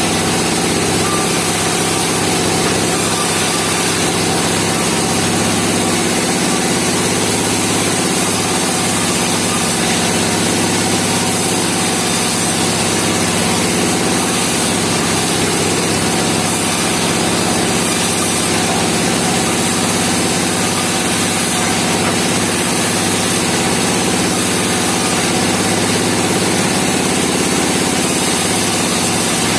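Engine-driven band sawmill running steadily, an even mechanical sound without pauses.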